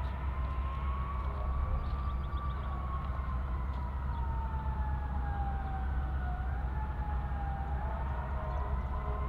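Freight train rolling past: a steady low rumble with a wavering whine that drifts slowly down and then back up.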